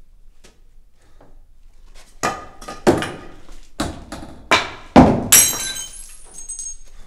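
Objects being flung and knocked about a workshop: about six heavy crashes and thuds in quick succession, starting a couple of seconds in, then a brief high ringing clatter of things hitting the floor.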